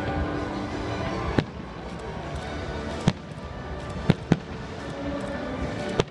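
Aerial firework shells bursting with sharp bangs, five in all, two in quick succession near the middle, over music playing throughout.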